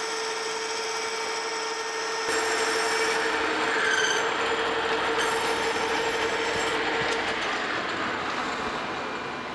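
Metal lathe running with a steady whine while a boring bar cuts the inside of a bronze bushing blank. The sound grows louder a couple of seconds in, then the whine fades away near the end as the lathe winds down.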